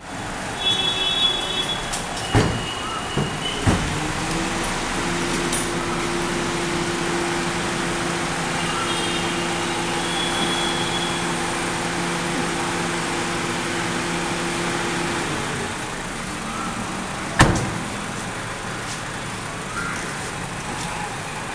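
Car at a standstill with its engine humming steadily through the middle stretch, and its doors knocking open and shut: two light knocks early on, then one loud door slam about three-quarters of the way through.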